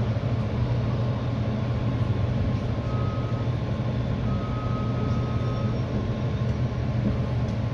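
EXO commuter train heard from inside a passenger coach: a steady low rumble and hum as it rolls slowly into the station. A faint high tone sounds briefly twice around the middle.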